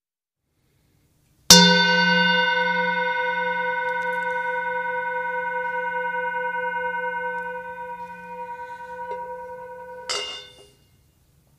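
Handheld metal singing bowl struck once with a mallet, then ringing with several clear tones and a slowly wavering low hum that fades gradually. Near the end there is a short scrape of the mallet against the rim, and the ringing stops suddenly.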